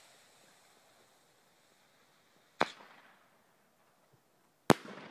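Two sharp bangs from the flash-powder reports of firework rockets, about two seconds apart, each followed by a short echo; the second is louder.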